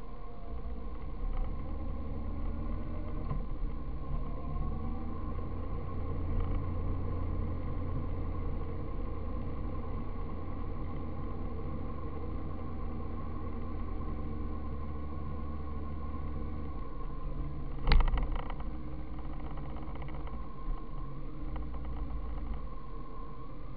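Road and wind noise of a vehicle in motion: a steady low rumble with a faint steady whine. One sharp knock comes about three-quarters of the way through.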